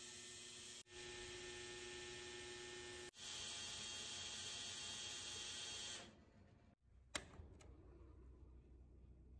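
1953 Westinghouse automatic washing machine running with a faint, steady hum and whir that falls away about six seconds in. A single sharp click follows about a second later.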